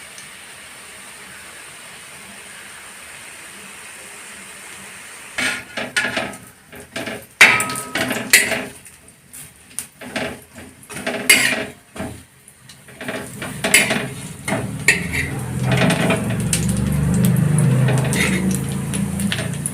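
A metal spatula clattering and scraping against a tawa as fish-roe patties are turned while they fry in oil, after a few seconds of faint steady sizzling. Many sharp knocks come in quick irregular runs from about five seconds in, and a low rumbling noise builds over the last few seconds.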